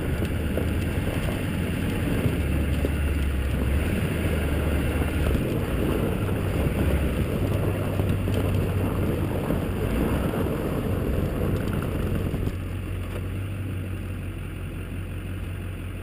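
A 2002 Chevrolet Silverado's 6.6-litre Duramax turbo-diesel V8 runs steadily as the truck drives over a snowy road, heard from a camera on the outside of the truck along with tyre and wind noise. The sound gets quieter about twelve seconds in.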